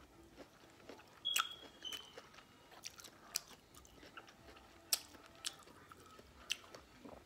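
Close-up mouth sounds of chewing sweet corn on the cob: irregular wet clicks and lip smacks, loudest about a second in and near the middle.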